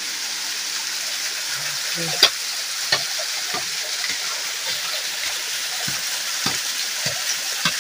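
A small hand digging tool knocking and scraping into soil and quartz vein rock: a handful of short, sharp knocks at irregular intervals, the loudest about two seconds in, over a steady hiss.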